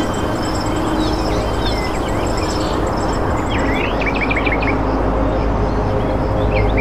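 Small birds chirping over a steady, loud rushing background noise, with a quick run of short rising chirps about four seconds in.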